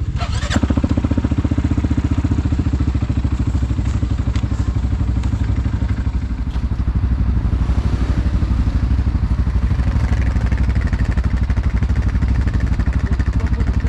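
ATV engine idling steadily close by, with an even, rapid exhaust pulse.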